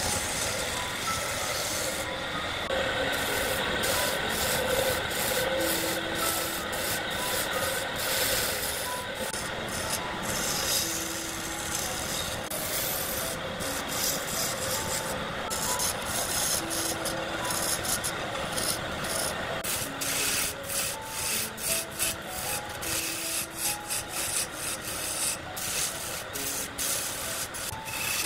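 A wood blank spinning on a wood lathe being worked with a tool or abrasive, giving a steady rubbing and scraping. After about twenty seconds the sound turns choppy, coming and going in quick pulses.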